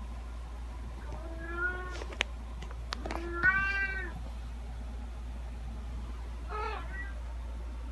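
Domestic cat meowing three times: a call about a second in, a louder, longer one about three and a half seconds in, and a short, fainter one near the end. A few sharp clicks fall between the first two meows.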